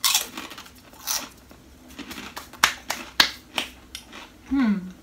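Close-up chewing of a crunchy snack: irregular sharp crunches, several in quick succession, then a short falling hummed 'mm' near the end.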